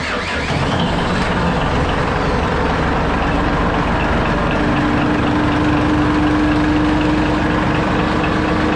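Fishing boat's engine running steadily, with a steady hum joining about three seconds in; it cuts off suddenly near the end.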